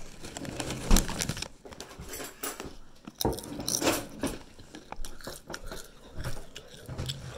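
Close-up chewing and biting on Flamin' Hot Doritos tortilla chips, with irregular crisp crunches, the loudest about a second in.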